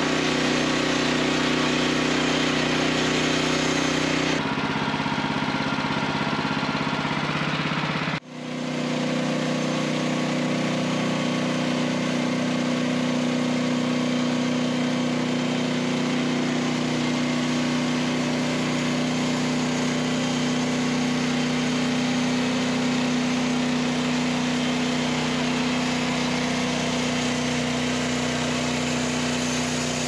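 Wood-Mizer LX55 portable band sawmill running steadily as its band blade saws through a tulip poplar log. The sound changes abruptly about four seconds in and drops out briefly about eight seconds in, then runs on steadily.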